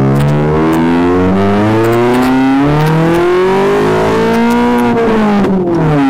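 Tuned Alfa Romeo GT engine and exhaust under hard acceleration. The note climbs in pitch, steps down at a gear change about halfway, climbs again, then falls away as the throttle is lifted near the end.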